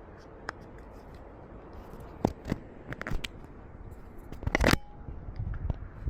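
A series of sharp clicks and knocks from camera gear being handled, with the loudest cluster about four and a half seconds in, over a faint steady background noise.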